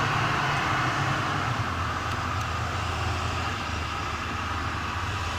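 A motor or engine running steadily under a general machinery din; its low hum drops slightly in pitch about one and a half seconds in.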